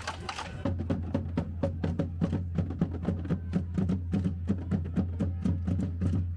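A marching band's drums beating a steady quick rhythm, about four strikes a second. A low steady note joins them just under a second in.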